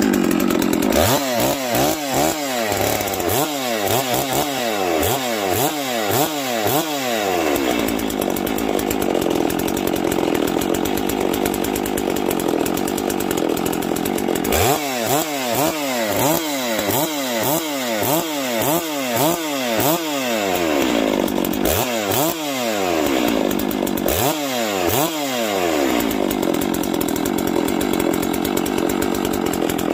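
Farmertec Holzfforma G660 two-stroke chainsaw running in 6°F cold on factory carburettor settings. It holds a steady idle, and three times the throttle is blipped in quick bursts of about two revs a second, each rising in pitch and dropping back.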